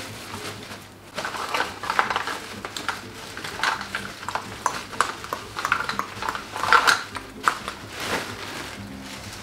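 Makeup products and their plastic packaging being handled on a table: a run of small clicks, clacks and rattles, starting about a second in.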